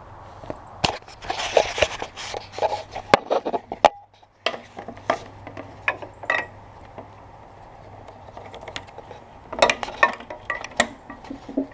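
Irregular metal clicks, clinks and rattles of small parts and tools being handled while working on a lawnmower recoil starter, in two busy spells, the second near the end, over a steady low hum.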